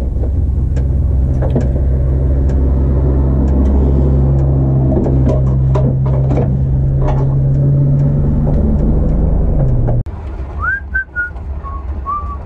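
Turbocharged Renault Clio race car's engine idling steadily, heard inside the stripped cabin, with scattered clicks and knocks. It cuts off suddenly near the end, giving way to faint outdoor ambience and a few short bird whistles.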